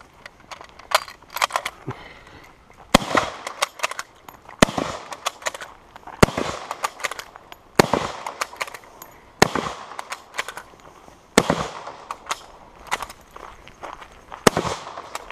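Lebel Model 1886/93 bolt-action rifle in 8x50R Lebel firing seven shots from its tube magazine, each echoing. The first five come about a second and a half apart, then two more with longer pauses before the last.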